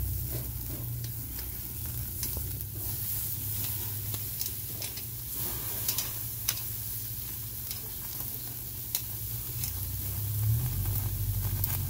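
Picanha steaks sizzling on the iron grate of a wood-fired grill, a steady hiss broken by scattered sharp pops. A low rumble runs underneath and swells near the end.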